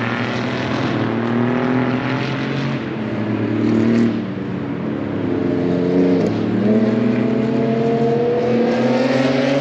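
Racing car engine accelerating through the gears: its pitch climbs steadily and drops sharply at an upshift about four seconds in and again about six seconds in, then climbs again.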